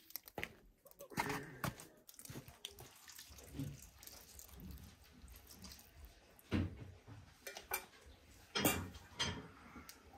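Corn and millet porridge bubbling and plopping in a large aluminium pot, in short irregular wet pops, with a few sharper knocks.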